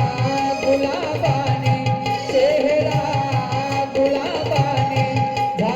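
Marathi song sung live: a singer draws out one word in a long wavering melisma over a steady held instrumental note and an even hand-drum beat.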